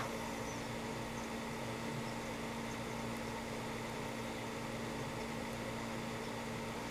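Steady low electrical hum with an even hiss. No snore or breath stands out.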